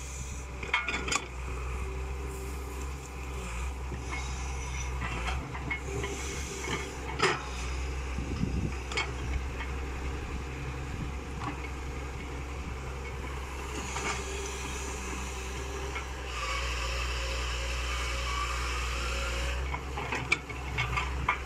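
IHI hydraulic crawler excavator's diesel engine running steadily as it digs, the note swelling at times as the hydraulics are worked, with a louder stretch near the end. Sharp clanks from the bucket and boom linkage come now and then.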